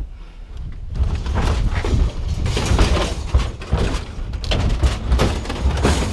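Scrap metal being unloaded, clattering and thudding in a dense irregular run of knocks from about a second in, over a low rumble.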